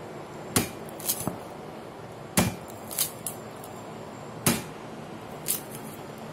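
A cleaver chopping through a corn cob onto a wooden cutting board: about seven sharp knocks, the three loudest roughly two seconds apart, with lighter taps between.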